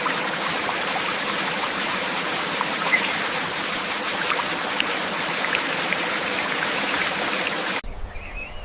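Steady rushing water, like a stream or small waterfall, as an even hiss with faint scattered ticks; it cuts off abruptly near the end, leaving a short chirp.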